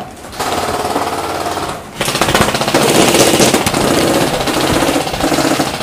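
Airsoft electric gun firing on full auto: a rapid mechanical rattle of shots. The first burst lasts about a second and a half, and after a short break a longer one of about four seconds follows. It comes through muffled on a partly covered headcam microphone.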